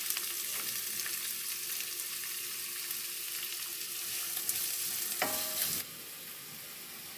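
Chopped onions sizzling in hot oil in a wok, stirred with a wooden spatula. The sizzle turns quieter about six seconds in.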